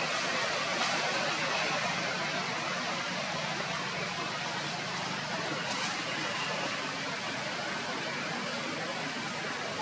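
Steady, even outdoor background hiss, with no distinct calls, knocks or voices.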